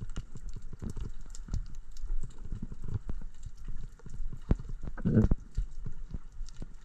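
Underwater sound picked up by a camera in a waterproof housing: steady irregular crackling clicks with low thumps and rushes of moving water, and a stronger rumbling surge about five seconds in.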